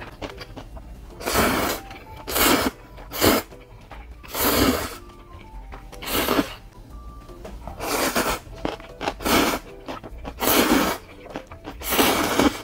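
A person slurps instant ramen noodles, about nine short hissing slurps roughly a second apart, over quiet background music.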